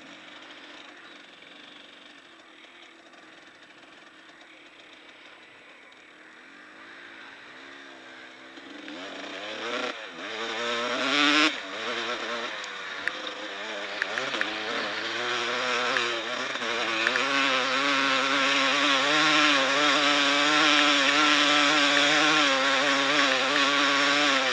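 Off-road motorcycle engine on a dirt trail: low and quiet at first, then from about eight seconds in it revs up and down several times before settling into a steady, louder run over the last several seconds, with rushing wind and ground noise under it.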